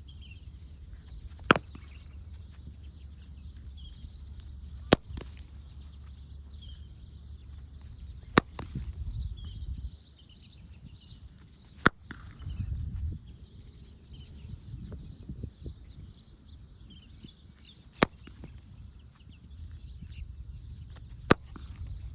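Repaired cricket bat striking a ball, six sharp cracks at intervals of about three to six seconds. Birds chirp faintly between the hits.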